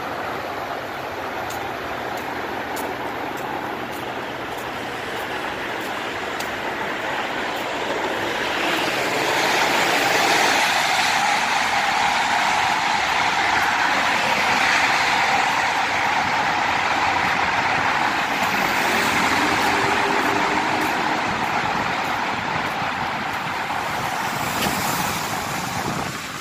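Road traffic echoing inside a concrete highway tunnel: a steady rushing noise that swells as a vehicle passes through, about a third of the way in, and eases off after.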